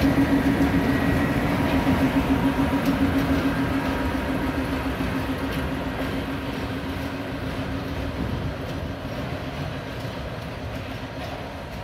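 ChME3 shunting diesel locomotive's six-cylinder engine running with a fast, even throb, fading steadily as the locomotive moves away, over the rumble of the tank cars' wheels on the rails.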